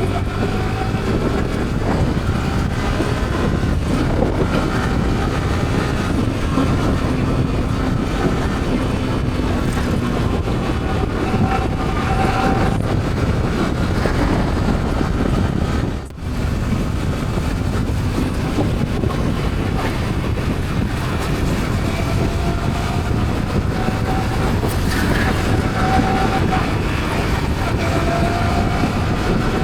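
Motorcycles riding at speed: a steady engine drone mixed with heavy wind and road rush, with the engine note rising several times.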